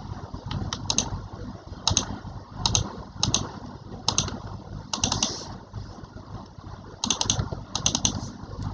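Computer keyboard keys clicking as someone types in short bursts of a few keystrokes, over a steady low rumble.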